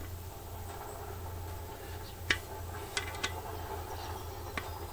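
A few short, sharp metal clicks of a spanner working the rusted flange bolts of a water-pump pressure tank, the loudest a little over two seconds in, over a faint steady low hum.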